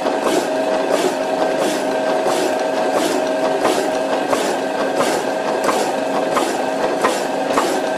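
Power hacksaw cutting through a metal spacer under coolant drip: the blade rasps through the work in regular strokes, about one and a half a second, over the steady hum of the machine.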